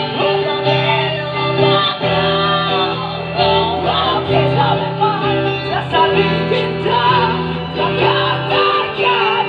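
Live band playing: guitars and a singer over a bass line that changes note about every second.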